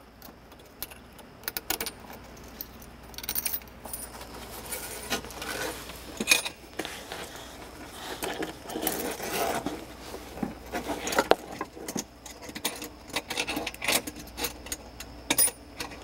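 Small metal faucet parts, a washer and a collar with two screws, clinking and jangling as they are slid over braided stainless supply lines and up the threaded shank, in irregular light clicks and rattles.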